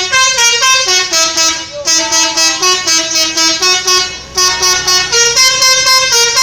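Bus telolet horn, a multi-tone musical air horn, playing a quick tune of short stepped notes in three phrases, with brief breaks about two and four seconds in.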